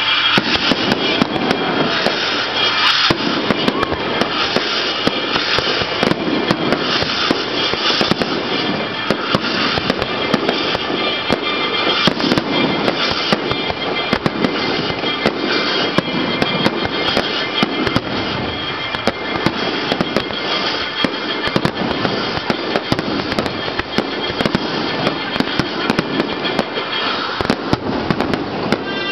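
Aerial firework shells bursting one after another in a dense, continuous barrage, with crackling bangs throughout, over music.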